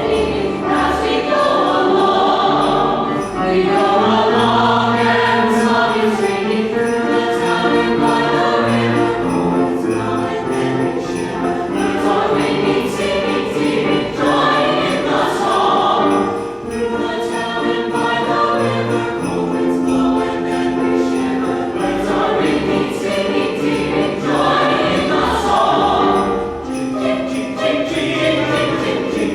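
Mixed chamber choir singing in several parts, accompanied by jingling sleigh bells and percussion.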